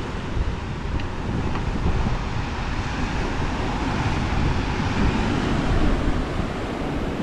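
Wind buffeting the microphone in a steady low rumble, over the sound of a choppy sea washing against the rocks.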